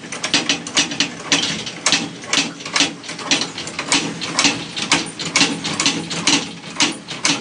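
Ratcheting mechanical clicks, about two a second over a steady low hum, as a garage door spring is wound up to put tension on it.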